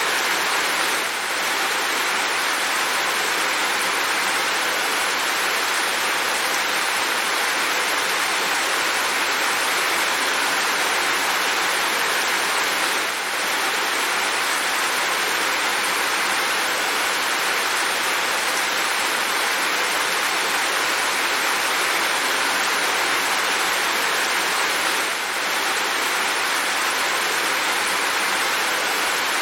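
Steady heavy rain falling, an even dense hiss with no single drops standing out. The loudness dips briefly about every twelve seconds.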